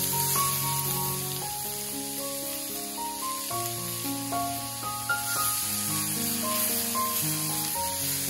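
Zucchini frying in a pan, sizzling steadily, with background music of slow, held melodic notes.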